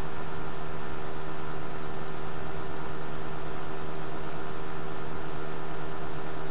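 Steady electrical hum with hiss, even and unchanging throughout: the recording's background noise.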